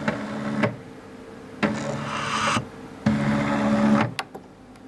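Stepper motor of a DIY ventilator prototype driving its belt-and-pulley compression stroke. It runs three times for about a second each, with a steady whine, and two sharp clicks come a little after four seconds in.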